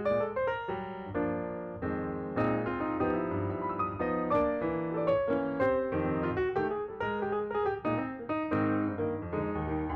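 Background piano music: a steady run of struck notes and chords.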